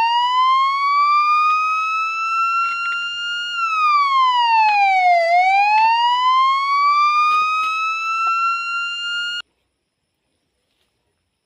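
A wailing siren: one tone slowly rising, dropping back, and rising again over about nine seconds, then cutting off suddenly. Faint clicks sound beneath it.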